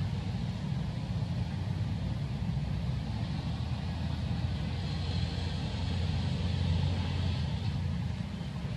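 A steady low rumble with a fainter hiss above it, unbroken throughout.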